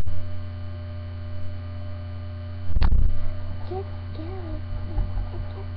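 Steady electrical mains hum in a webcam recording, with a single loud thump about three seconds in. In the second half there are faint, short voice sounds.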